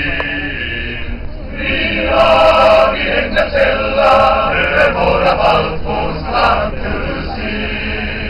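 Choir singing in the open air, heard from within a standing crowd. The voices hold long, sustained notes, and closer, louder voices rise over the choir from about two seconds in until near the end.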